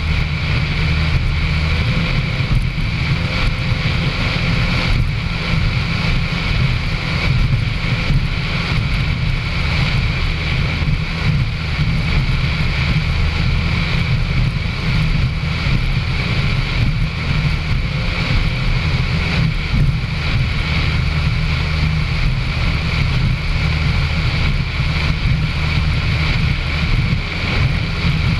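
Racing powerboat running at steady high speed: an unbroken low engine drone, with wind buffeting the onboard microphone and the hull rushing through spray.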